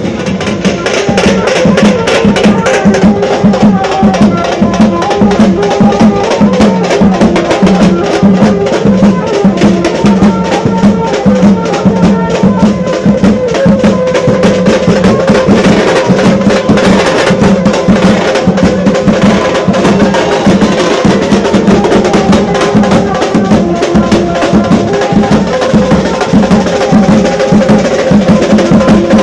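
Street procession drum troupe of dhols and stick-played drums beating a loud, fast, driving rhythm without a break.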